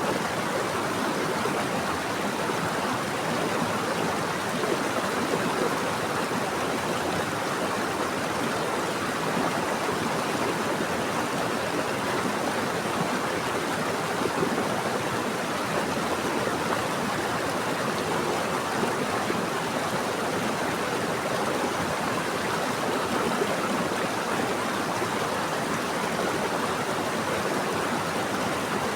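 Running water of a stream or small waterfall, a steady, even rush.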